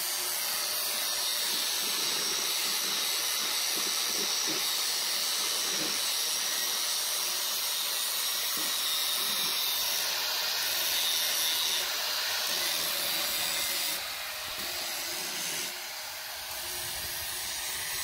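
Electric angle grinder running against the steel blades of a forage chopper, a steady high grinding hiss as the dull blades are sharpened. It eases off somewhat about three-quarters of the way through.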